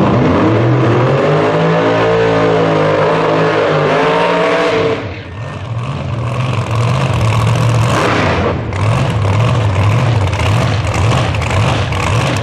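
Drag racing car engines at high revs: one engine's note climbs over the first two seconds, holds, then cuts off about five seconds in, followed by a harsh, noisy high-revving run with a brief dip near nine seconds. A lower, lumpy engine note runs underneath throughout.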